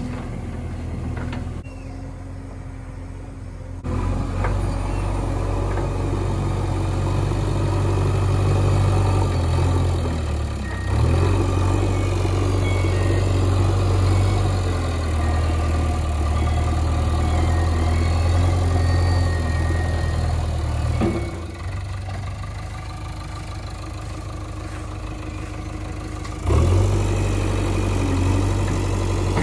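JCB 3DX backhoe loader's diesel engine running. It picks up about four seconds in, holds a higher level with small dips and rises, falls back to a lower run about two-thirds of the way through, and picks up again near the end.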